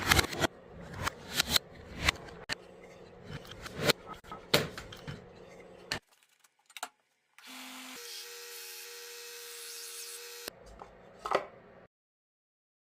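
Wooden pieces knocking, clacking and rubbing against each other in an irregular run of sharp taps. After a short gap comes a steady hum with a few held tones, lasting about three seconds, then a few more wooden knocks before the sound cuts off.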